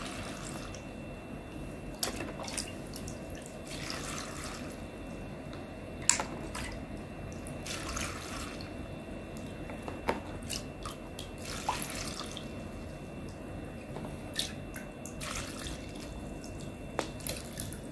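Vinegar-and-salt brine trickling from a glass pitcher into a tall glass jar of mixed vegetables as the jar is filled for pickling, with a few light clicks along the way.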